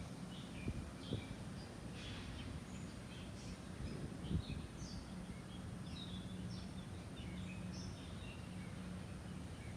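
Small birds chirping in short, repeated calls over steady outdoor background noise with a low hum. A few knocks come about a second in and again past four seconds.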